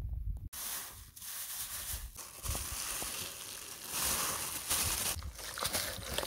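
Uncooked rice poured from a crinkling plastic bag into a plastic basin: a dense rustle of grains and plastic that starts abruptly about half a second in, after a brief low wind rumble.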